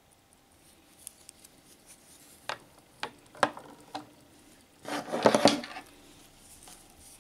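Handling noise of wristwatches on a wooden table: steel cases and leather straps knocking and rubbing on wood. There are a few sharp separate knocks in the middle, then a louder burst of rubbing and clatter about five seconds in as another watch is picked up. Faint, fast ticking of the watch movement is heard in the first second.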